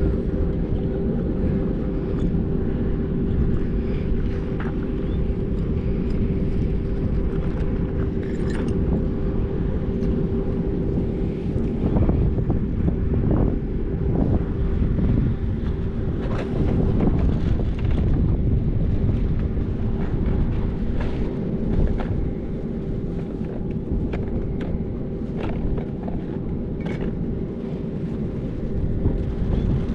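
A steady mechanical drone: a constant hum over a low rumble, with a few light clicks and knocks scattered through.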